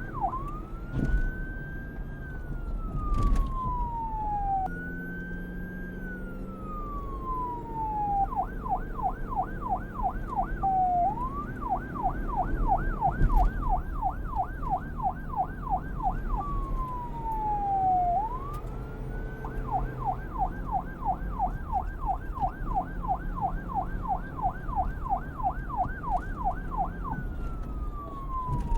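Police car's electronic siren switching back and forth several times between a slow wail, rising and falling over a few seconds, and a fast yelp of about three sweeps a second. A low rumble runs beneath.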